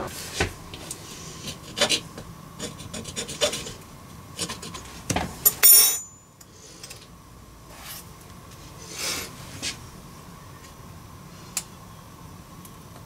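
Custom breaker-panel labels being rubbed and pressed into place on an electrical switch panel: a run of short scrapes and clicks, the loudest a sharp scrape about five and a half seconds in, then only a few light rubs.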